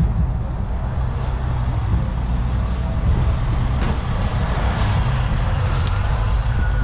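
A vehicle engine idling nearby: a steady low rumble.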